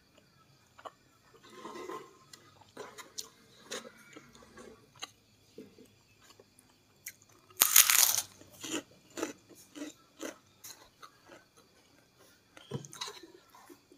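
Eating sounds: fingers picking at food, then one loud crunch about eight seconds in as a fried kerupuk cracker is bitten, followed by short crunchy chewing and small mouth clicks.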